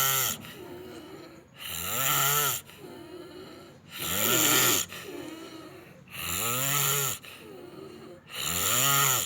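A person snoring loudly: a snore about every two seconds, each lasting about a second with a pitch that rises and falls, and softer breathing between the snores.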